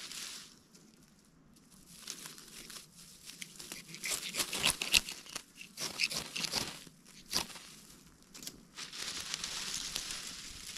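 Dry grass and dead leaves crumpled and rustled by hand while tinder is packed into a fire lay, with irregular crackly snaps that are loudest and thickest in the middle.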